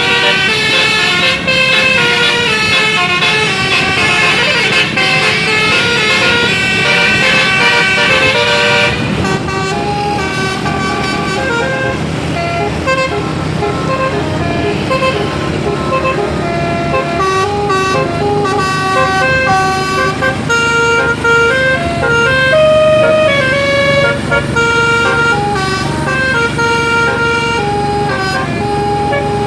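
Indonesian bus 'basuri' telolet horns playing a run of short stepped-pitch melody notes, tune after tune, over a running bus engine. The tune pattern changes about nine seconds in.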